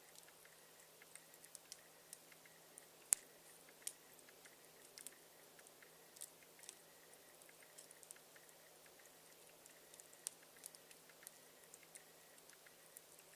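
Campfire crackling: scattered small, irregular pops and snaps of burning wood over a quiet background, with one sharper pop about three seconds in.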